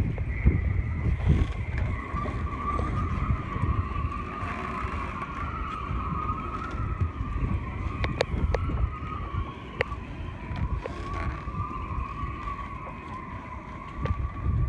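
Wind buffeting the microphone, with a steady whine that wavers slightly in pitch running underneath and a few sharp clicks partway through.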